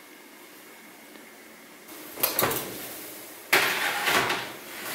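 Two sudden knocks, about two and three and a half seconds in, each followed by a second or so of rustling and scraping handling noise.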